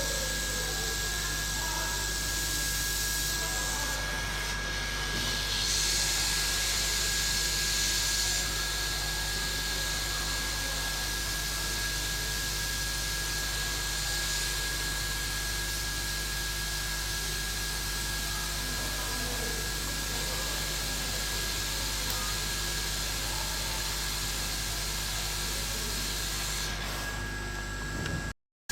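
Hot air rework gun blowing a steady hiss with a thin high whine, heating the underfill glue around a chip on an iPhone board to soften it. It grows a little louder about four to eight seconds in and cuts out briefly near the end.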